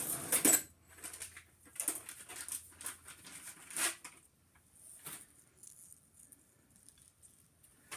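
Scattered light clicks and rustles of a small metal drive chain being handled, as the new staging chain is picked up and laid around the gears. The loudest rustle is near the start, with a few sharper clicks up to about five seconds in, then it goes quieter.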